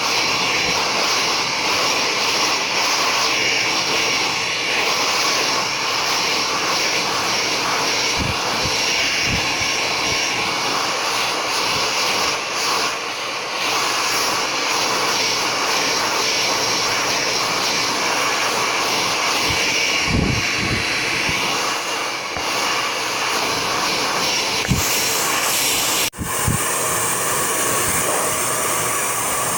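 PHOEBE hand-held hair dryer with its nozzle attachment fitted, blowing steadily while drying wet hair. There are a few soft low bumps from handling, and the rush cuts out for an instant near the end.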